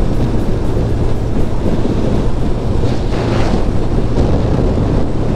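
Wind rushing over the microphone of a Kawasaki Ninja ZX-12R at road speed, over a steady low drone from its inline-four engine. About three seconds in, a brief louder rush rises and fades.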